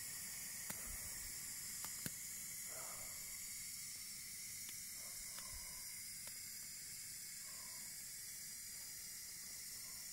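Canister gas stove burning under a pot, a steady hiss, with a few faint clicks.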